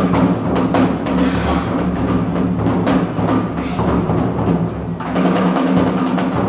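Awa Odori festival music led by taiko drums beating a brisk rhythm, with clacking percussion over a steady low backing. It stops abruptly at the very end.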